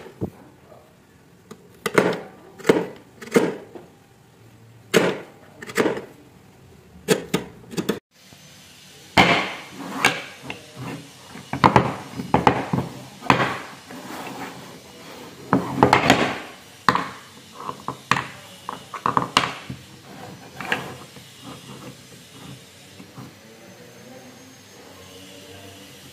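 Sharp wooden knocks of chisel work chopping into a hardwood board, one strike every second or less. After a break, hardwood joint pieces clack and knock against each other and the table as they are handled and fitted together into a corner joint, the knocks thinning out near the end.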